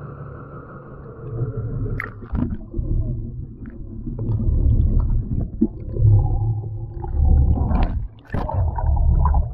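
Muffled underwater rumbling and gurgling of seawater around a camera held below the surface, with splashing as it goes in about two seconds in and again near the end as it nears the surface.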